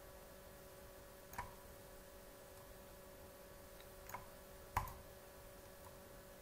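Three computer mouse clicks, the third the loudest, over a faint steady hum.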